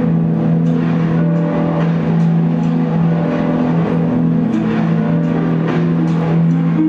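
Soundtrack of a 3D movie show played loudly: a steady low drone under shifting music and sound effects.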